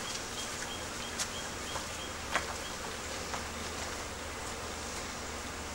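Honeybees buzzing around the hive entrances in a steady hum, with a few sharp clicks about a second and two seconds in and a faint high chirp repeating about three times a second over the first two seconds.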